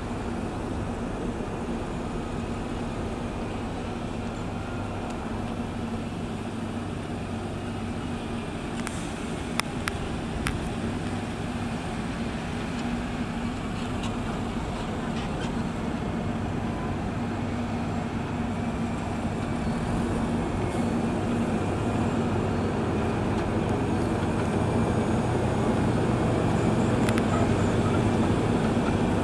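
Diesel engine of heavy road-building machinery running steadily, with a low engine hum throughout and a few sharp clicks about a third of the way in; it grows gradually louder over the last third.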